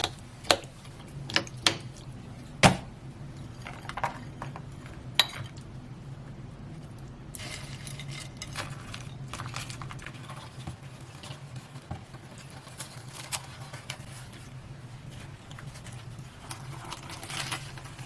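Kitchen clatter of dishes and cutlery: several sharp clinks in the first six seconds, then softer scraping and rustling, over a steady low hum.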